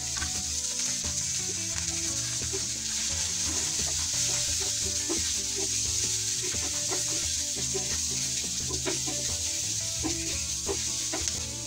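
Pork pieces frying in a nonstick pan: a steady sizzling hiss with scattered light clicks of a utensil stirring and turning the meat.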